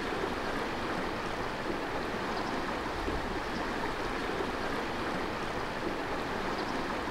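Steady rush of a small river's flowing water, an even, unbroken noise.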